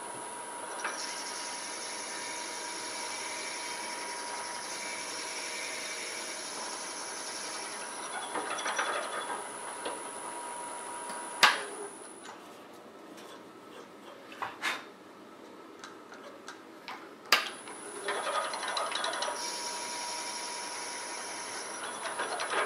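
Wood lathe running at slow speed while a 1/4-inch drill bit in the tailstock bores into a cast Alumilite resin blank, with scratchy bursts of cutting. The steady high whine drops out for several seconds in the middle, broken by a couple of sharp clicks, then comes back.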